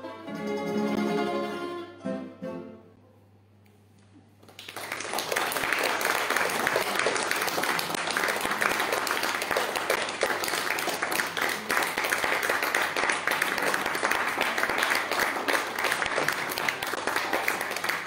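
A plucked-string quartet of two mandolins, mandola and guitar plays its last chords, which die away into a brief silence. About four and a half seconds in, an audience breaks into steady applause.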